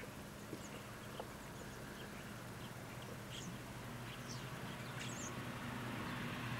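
Faint, scattered birds chirping over a steady low hum, with a few soft clicks. Near the end a broad rushing noise starts to grow louder.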